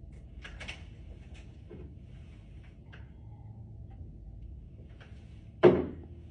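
A person hiccuping: one loud, sudden hiccup near the end, with a few faint clicks earlier.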